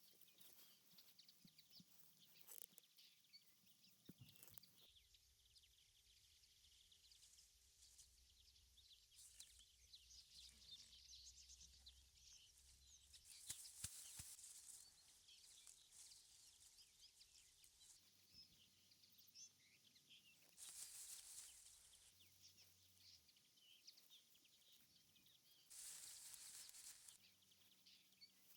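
Near silence: faint outdoor ambience, with three brief soft rustling swells.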